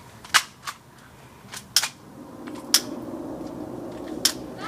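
Airsoft guns firing single shots: about seven sharp snaps at irregular intervals. A steady low hum comes in about two seconds in.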